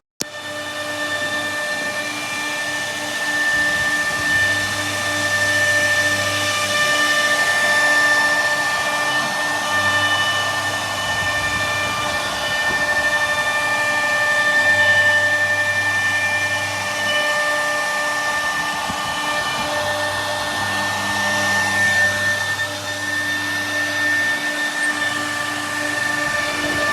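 CNC router spindle running with a steady high whine while milling wood, with cutting noise that swells and eases. A low hum comes and goes every few seconds.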